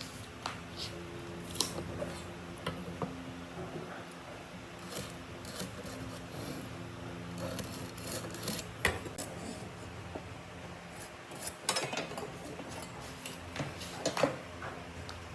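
Irregular light knocks, clicks and scraping of hand work on wood, with the loudest knocks late on, over a faint steady low hum.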